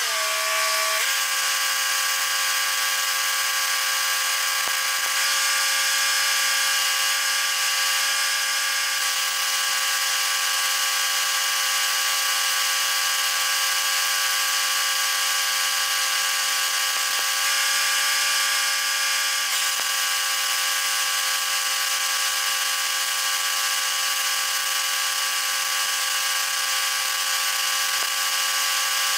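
Stick welding on the steel grapple ear: a steady arc hiss and crackle over the welding machine's steady hum with several fixed tones. The sound shifts slightly about a second in and again around twenty seconds in.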